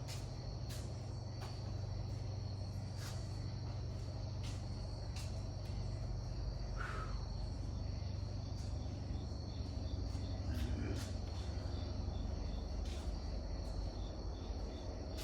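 Crickets chirping steadily, a high continuous trill with scattered sharp clicks, over a steady low rumble.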